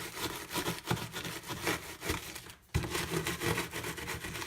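Rolling pin rolling over Oreo cookies in a Ziploc bag, crushing them: rapid crunching and crinkling of the plastic bag, breaking off briefly a little past halfway.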